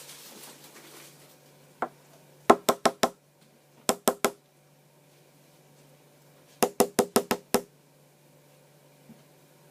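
Quick, sharp knocks of a chocolate surprise egg being tapped on a hard surface to crack it open: a single knock, then bursts of four, three and six knocks, each with a short ring.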